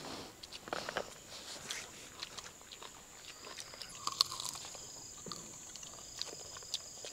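People biting into and chewing crisp fried mutton pieces, with scattered short crunches and smacks. A steady high hum runs underneath.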